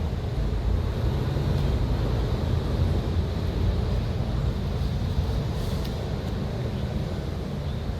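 Steady low outdoor rumble with no distinct events, of the kind made by distant city traffic and wind on a small camera microphone.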